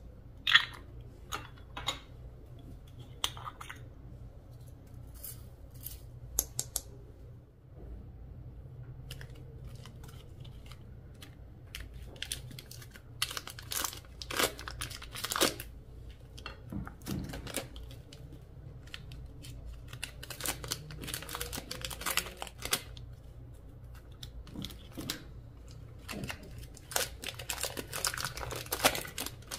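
Slime being squeezed, pressed and stretched by hand, giving irregular short crackles, clicks and small pops, in denser runs around the middle and near the end, over a faint steady low hum.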